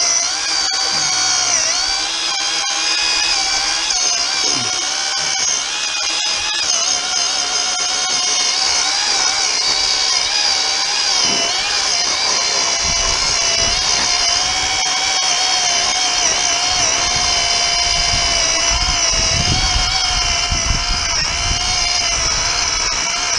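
Worx WG322 20V cordless electric chainsaw running continuously as it cuts through a log. The motor's whine wavers slightly in pitch as it works under load.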